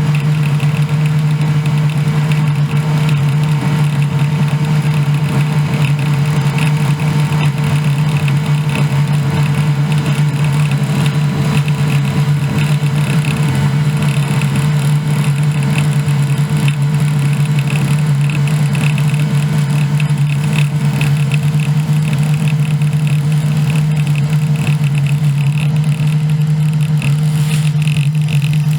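Combine engine and harvesting machinery running at a constant speed: a loud, unchanging drone.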